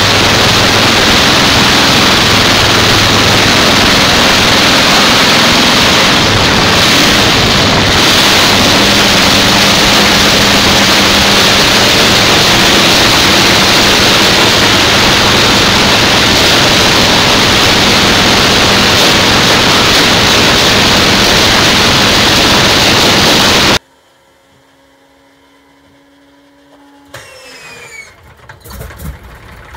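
Shvetsov ASh-62 nine-cylinder radial aircraft engine running loudly and steadily on a test stand through short open exhaust stacks, cutting off abruptly about 24 seconds in. Near the end, a faint whine rising in pitch as an An-2's engine starter winds up.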